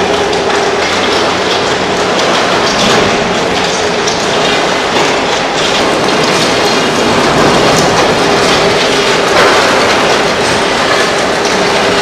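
Heavy concrete-pole production machinery running with a loud, steady, rattling clatter over a steady hum.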